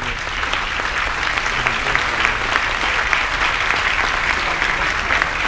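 Large audience applauding, a dense steady clapping.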